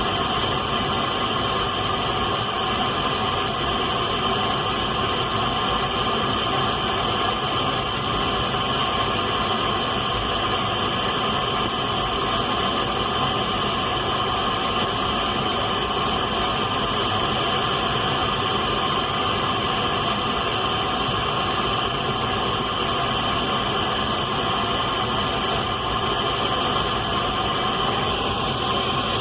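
Radio static: a steady hiss with several constant whining tones running through it, unchanging in level.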